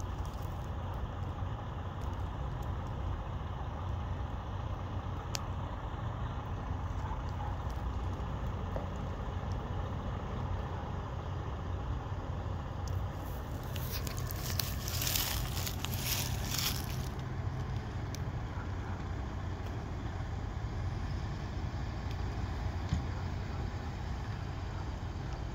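Ambulance engine running as the ambulance pulls out and drives past, heard as a steady low vehicle rumble. About halfway through there are a few seconds of loud hissing noise.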